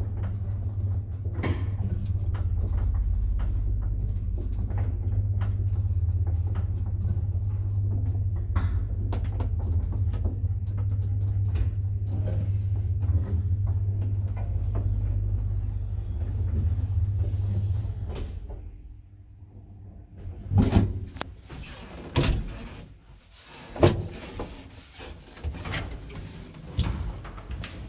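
A 1960s ZUD passenger lift running with a steady low hum and scattered clicks, winding down and stopping about eighteen seconds in. After it stops come several loud knocks and clatters, typical of the lift's doors being opened.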